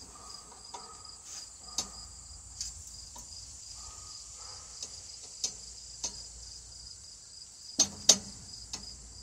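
Steady high-pitched insect trilling, with scattered sharp knocks and clicks from sweet potatoes being handled and sorted by hand, the two loudest knocks close together near the end.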